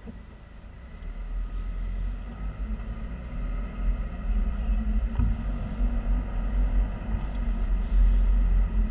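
Road noise inside a car's cabin as it pulls away from a stop: a low rumble that swells about a second in and carries on as the car drives.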